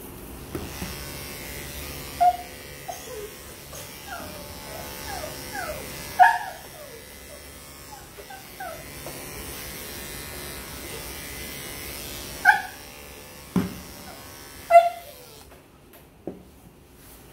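Electric dog grooming clippers buzzing steadily through a belly and sanitary trim, while a dog gives short, falling yips and whimpers, loudest about six seconds in and near the end. A couple of thumps come late, and the clippers stop shortly before the end.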